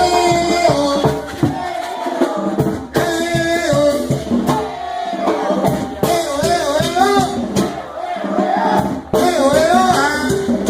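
Loud dance music with a singer's wavering, vibrato-laden melody over a steady beat of drums and shaker-like percussion.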